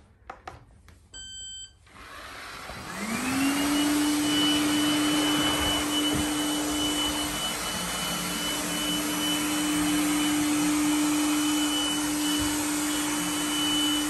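Lefant robot vacuum cleaner started by its button: a short beep about a second in, then the suction motor spins up with a rising whine and settles into a steady whine over the rush of suction as it drives over the floor.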